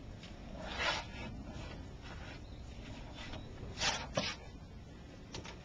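Skin being cut and pulled from a butchered rooster carcass: a few short rubbing, tearing sounds.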